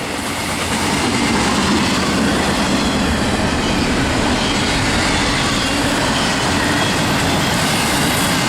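CSX freight train rolling past at speed: a steady, loud rush of steel wheels on the rails as the cars go by.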